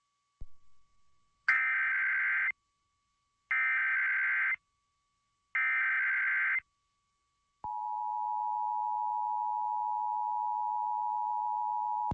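Emergency Alert System SAME header: three bursts of digital data tones, each about a second long and a second apart. About seven and a half seconds in, the steady two-tone EAS attention signal (853 and 960 Hz together) starts and holds to the end.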